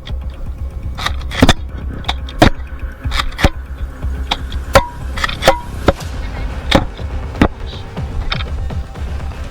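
About a dozen sharp clicks and knocks at irregular spacing over a steady low rumble, with music underneath.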